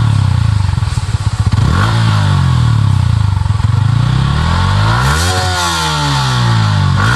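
Yamaha R15 V3's single-cylinder engine through its stock exhaust, idling and revved with quick throttle blips, the highest about five seconds in.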